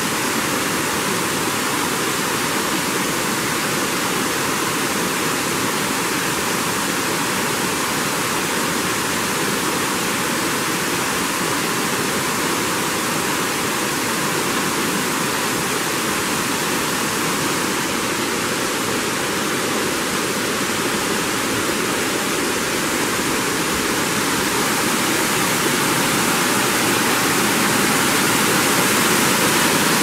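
Trahlyta Falls, a tiered cascade spilling over rock ledges, rushing steadily; the rush grows a little louder near the end.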